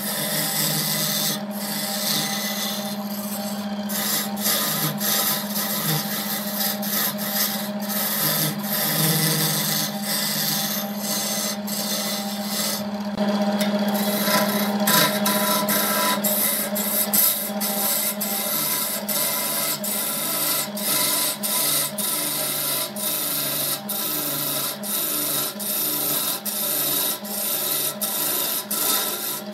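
Wood lathe running with a steady hum while a hand-held turning tool cuts into a spinning wooden blank, shaving it with a rough scraping sound. About halfway through, the cutting falls into a regular pattern of repeated strokes.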